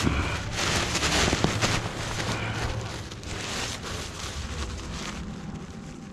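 Rip-stop nylon paraglider cloth rustling and crinkling inside its packing bag as hands press the air out of the folded wing, loudest in the first couple of seconds and slowly fading.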